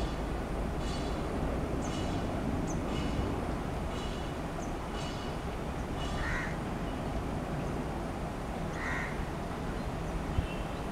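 Crows cawing several times, with another bird calling about once a second, over the steady low rumble of a distant WDM-3A diesel locomotive.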